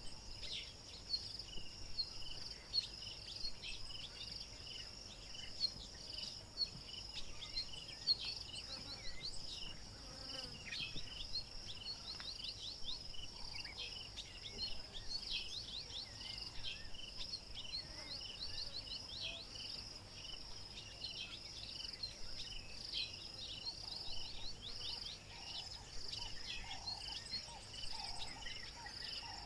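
Insect chorus in the bush: a steady high-pitched trilling, with many short, high chirps over it.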